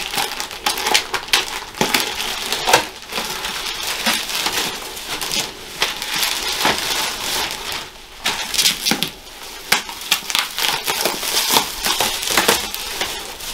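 Plastic mailer bag and bubble wrap being pulled open and peeled off a parcel by hand: continuous crinkling and rustling with many sharp crackles.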